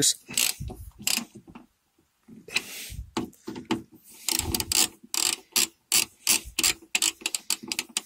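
Ratcheting screwdriver clicking in quick runs as two Torx screws are tightened, with a short pause about two seconds in and steadier clicking over the last few seconds.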